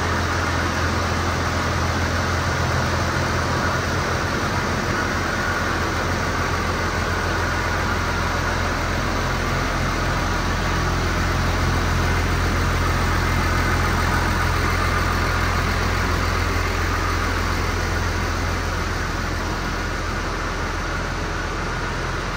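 2011 New Holland T7030 tractor's six-cylinder diesel engine idling steadily.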